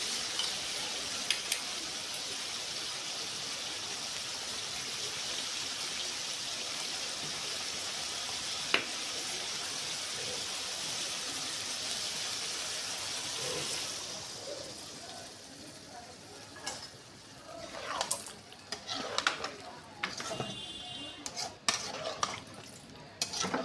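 Food frying with a steady sizzle for about fourteen seconds, with a sharp click or two. The sizzle then dies down and gives way to irregular clinks and scrapes of utensils against the pan.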